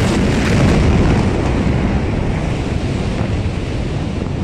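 Loud, rushing roar of a huge explosion's blast wave buffeting a phone microphone just after the blast, slowly dying down. This was the ammonium nitrate explosion at Beirut's port.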